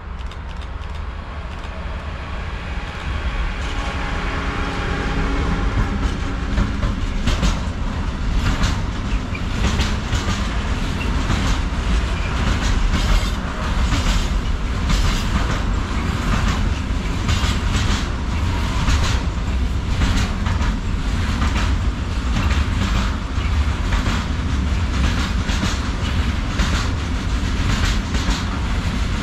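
Freight train approaching and passing close by, growing louder over the first several seconds with a faint whine dropping slightly in pitch. From about seven seconds in, its wagon wheels clatter steadily over the rail joints, over a low rumble.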